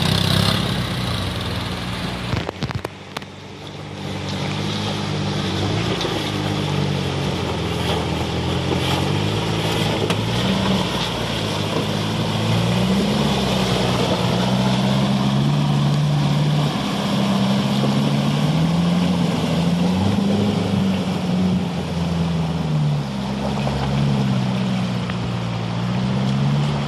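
Toyota Tacoma pickup's engine revving up and down as it drives through a shallow river, with water splashing around its tyres.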